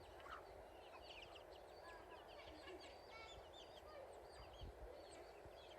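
Many small birds chirping at once, a dense run of short, quick high calls, faint over steady background noise.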